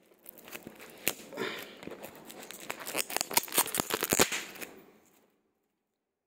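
Plastic shrink wrap around a pad of worksheets crinkling and crackling as it is handled, a dense run of sharp crackles that cuts off to silence about five seconds in.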